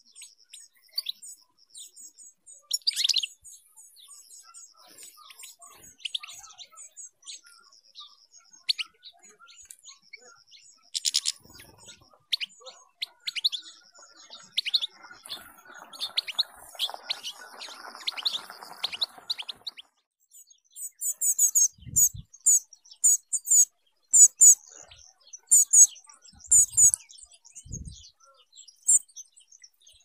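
Small wild finches calling and twittering, with a repeating high trill in the first part and louder, very high chirps in quick runs from about two-thirds of the way in. A few short low thumps come near the end.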